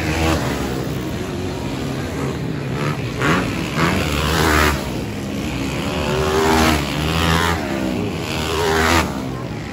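Motocross dirt bike engines revving hard, the pitch climbing and dropping again and again as the riders accelerate and shift.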